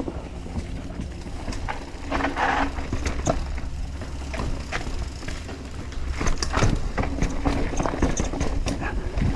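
Commencal Clash mountain bike riding a dirt trail, with a steady low wind and tyre rumble on the helmet-camera microphone. Sharp clicks and knocks from the chain and frame rattle run through it, and there is a short scuffing hiss about two seconds in.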